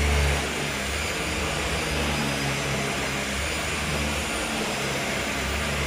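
Hoover H Upright 500 Plus upright vacuum cleaner running: a steady rushing motor sound with a low hum, a little louder in the first half-second as the motor comes up to speed.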